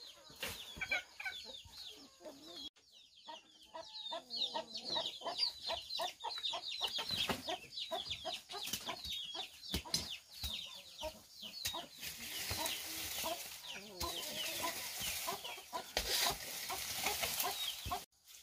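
Chickens clucking, with many short high chirps packed together. A steady hiss joins them about twelve seconds in.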